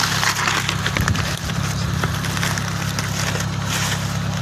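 Engine running steadily at a constant speed, with a hiss and scattered light rattling over its low drone.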